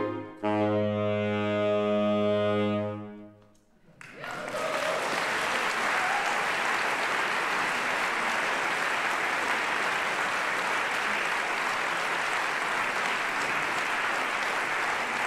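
A clarinet and saxophone sextet (clarinets, alto and tenor saxophone, bass clarinets) holds its final chord, which dies away about three seconds in. About a second later the audience breaks into steady applause that carries on to the end.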